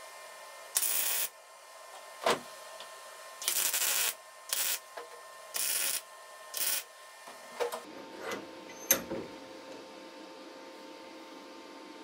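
MIG welder laying short tack welds: five bursts of arc crackle, each under a second, then a few sharp metallic clicks.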